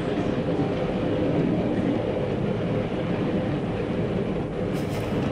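Steady rumble of a railway passenger carriage running along the track.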